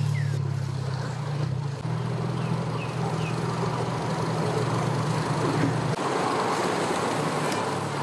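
Engine idling with a steady low hum, joined after a few seconds by a broader rushing noise of vehicles moving on the ramp.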